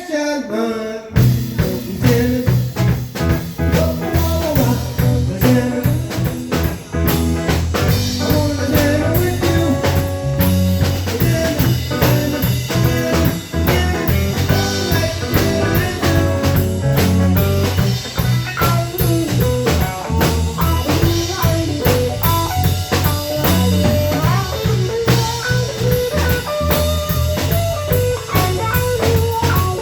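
Live band playing a blues jam on drum kit and guitar, the full band kicking in about a second in and playing on steadily.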